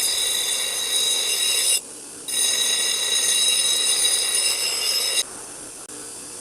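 Steel lawnmower blade pressed against a running power grinder for a hollow grind: two long passes of loud, high-pitched grinding with a short break between, then the grinder runs on lightly without the blade near the end.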